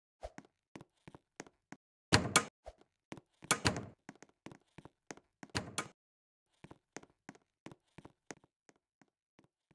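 A run of light taps, about three a second, broken by three louder thumps about two, three and a half, and five and a half seconds in.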